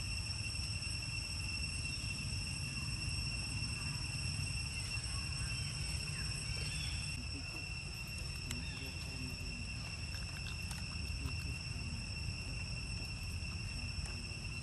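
Steady high-pitched insect drone, several even tones held without a break, over a low rumble, with a few faint short chirps in the middle.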